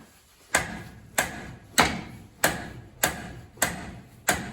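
A hammer striking a socket wrench's handle again and again, about one blow every 0.6 s, seven metallic knocks with a short ring. It is a "redneck impact": hammering the wrench in place of an impact gun to break loose a seized inch-and-a-sixteenth nut.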